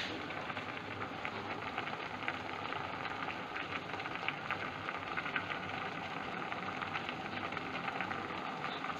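Fish and aromatics simmering in an aluminium pot on a hob, a steady bubbling with many fine crackles. A low steady hum runs under it.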